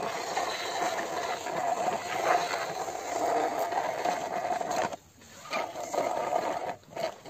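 Plastic wheels of a toy jeep rolling and scraping along concrete as it is pushed by hand. The steady rolling noise stops abruptly about five seconds in, picks up again, and breaks off briefly near the end.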